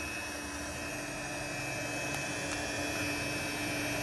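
Steady machine hum with an airy hiss, even throughout, with a couple of faint ticks.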